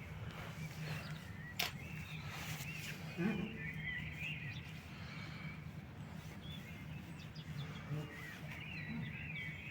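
Birds chirping over a steady low background hum, with a single sharp click about a second and a half in.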